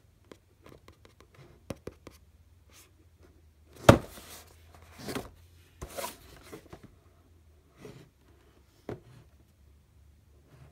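Hands handling and turning a cardboard retail box, with light rubbing and scraping and a few knocks. The sharpest knock comes about four seconds in.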